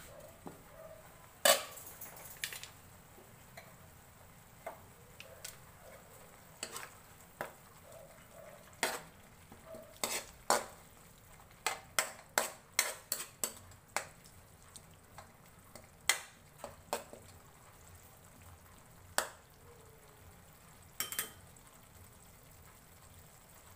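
Metal spatula scraping and tapping against a metal wok as alugbati (Malabar spinach) leaves are stirred in a little soy sauce, with a faint sizzle underneath. A loud metal clank about a second and a half in, then scattered clicks and knocks of the spatula on the pan.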